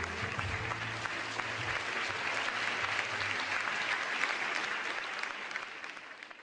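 Audience applauding steadily, with the last low notes of the music dying away in the first second or so; the clapping fades out near the end.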